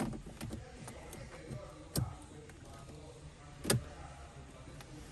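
Sharp clicks and knocks of hands handling parts inside a car's cabin, three louder ones about two seconds apart, the last the loudest, over a low steady hum.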